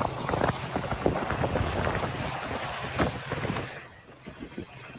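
Wind buffeting a camera microphone over a steady outdoor rushing roar, with rough crackles, dropping off sharply about four seconds in.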